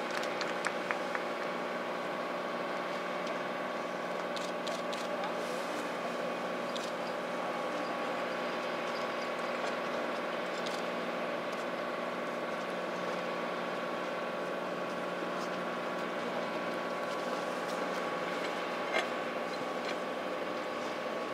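Steady engine drone with a stack of even tones, holding the same pitch and level throughout, with a few faint claps in the first second and a single click near the end.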